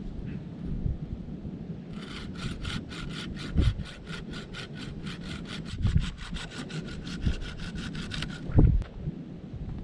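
Folding pruning saw cutting through a thin wooden pole: a fast, even run of rasping strokes begins about two seconds in and stops a little after eight seconds. A few dull thumps come in between, the loudest just after the sawing stops.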